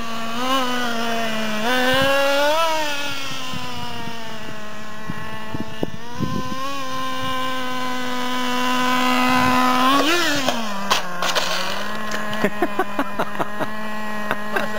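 Nitro RC truck's small two-stroke glow engine running with a high, steady buzz, its pitch rising and falling with throttle blips about half a second, two and a half and ten seconds in. In the last few seconds a quick run of sharp clicks sounds over the engine.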